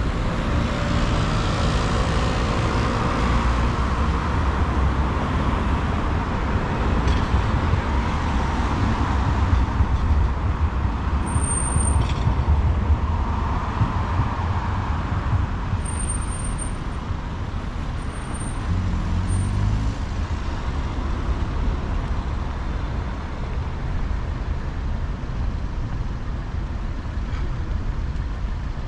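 City road traffic: a steady rumble of engines and tyres, with vehicles swelling past about two seconds in and again around thirteen seconds.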